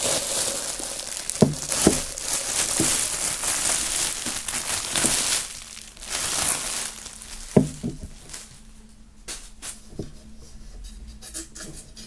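Clear plastic wrap crinkling as it is pulled off a metal-lined tankard, with a few sharp knocks of the tankard being handled. About halfway through the crinkling stops, leaving soft clicks and rustles.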